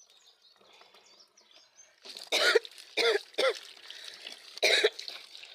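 A person coughing four times in short bursts, the first three close together about two seconds in and the last near the end.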